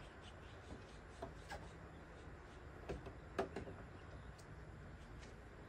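Faint rubbing and a few soft taps as a trunk spoiler is held, slid and pressed against a car's trunk lid, the clearest tap about halfway through, over a low steady background noise.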